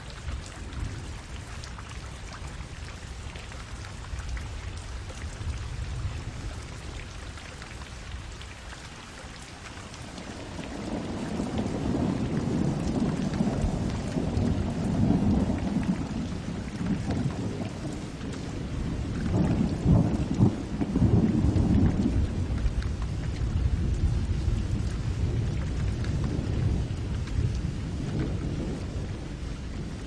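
Steady rain falling on puddles, with a long roll of thunder that swells about a third of the way in, peaks twice and slowly dies away toward the end.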